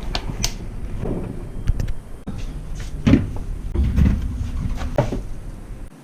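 A series of irregular knocks and clatters, about five, over a steady low rumble that cuts off suddenly near the end.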